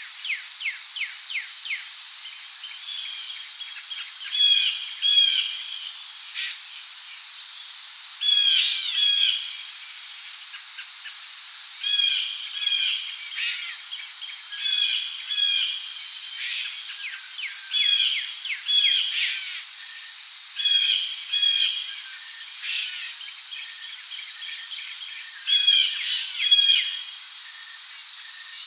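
Rainforest ambience: crickets keeping up a steady high drone, with birds calling over it in short repeated chirps, often in pairs, every second or two, and a quick trill of rapid notes near the start.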